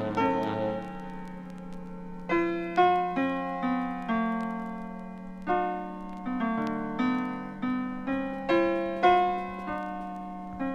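Instrumental music: a keyboard plays a slow, uneven run of single struck notes, each fading away, over a steady low held tone.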